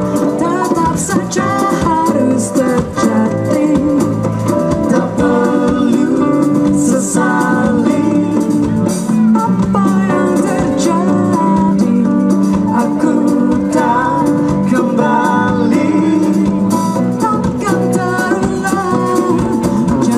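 Live band playing an upbeat jazzy pop song: a woman sings the lead over electric guitar, bass guitar and djembe hand drums, with backing singers.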